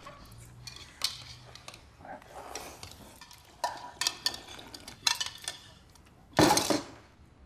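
Noodle soup being eaten: chopsticks and spoons clicking and clinking against bowls, with scattered short eating noises and one louder noisy burst of about half a second near the end.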